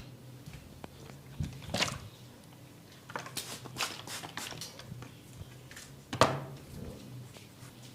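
Short, crisp cracks from a barber's cracking head massage. A sharp snap comes at the start, another about two seconds in, then a quick run of crackles between about three and five seconds, and a loud crack about six seconds in.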